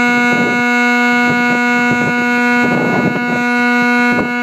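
Truck horn held down in one long, steady blast at a single pitch.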